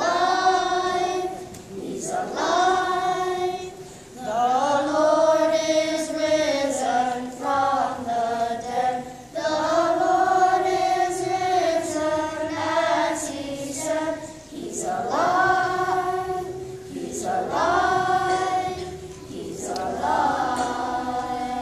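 Children's choir singing a hymn unaccompanied, a cappella, in sustained phrases with brief breaths between lines.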